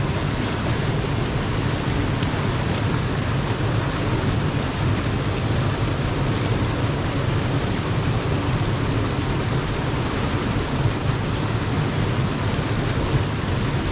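Shallow mountain stream rushing over rocks and a small cascade: a steady rush of water with a deep rumble underneath.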